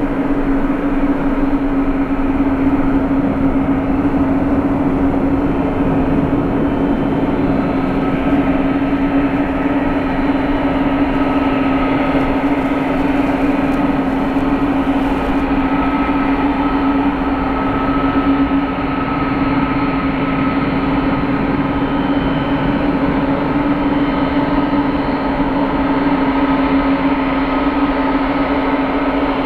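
Jet engines of the Japanese government's Boeing 747-400 running steadily: a constant deep hum with a higher whine that comes in clearer about seven seconds in.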